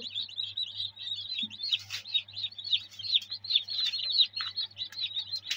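Newly hatched chicks peeping inside an egg incubator: rapid, continuous high peeps, each falling in pitch, over a steady low hum. A brief click about two seconds in and again near the end.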